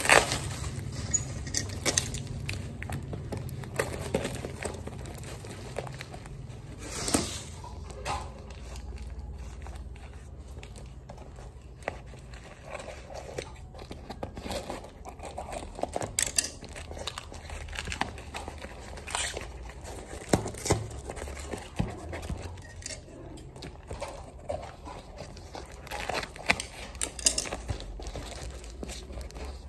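Bubble wrap and cardboard packaging being handled, cut with scissors and torn open by hand: irregular crinkling, rustling and tearing, with scattered sharp crackles.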